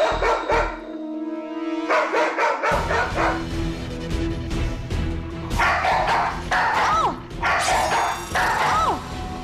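A mixed-breed dog barks in agitated bouts, set off by a catch-pole snare. There are a few quick barks at the start, then three bouts of about a second each in the second half. Background music plays underneath.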